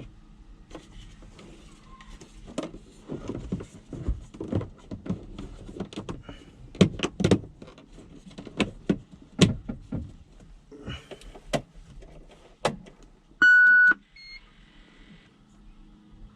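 Irregular plastic clicks and knocks of the replacement HVAC control panel and its wiring connector being handled and snapped into the loader's dash. Near the end, a steady electronic beep lasts about half a second, followed by a shorter second beep.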